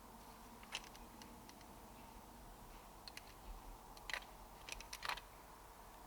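Several faint, sharp clicks and taps, irregularly spaced, the loudest about four seconds in and a quick cluster about a second later, over a faint steady hum.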